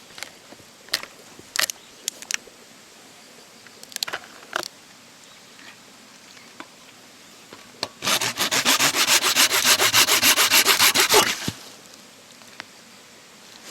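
Fatwood being scraped hard and fast: a rapid, even run of scraping strokes, about nine a second, lasting some three seconds, as for raising resinous shavings or tinder dust. Before it come a few scattered sharp clicks and taps of wood being handled.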